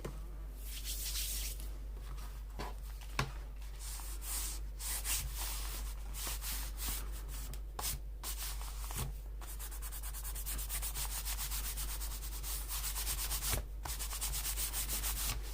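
Paper being rubbed quickly back and forth in bursts of scratchy strokes, with a fast, even run of strokes in the later part.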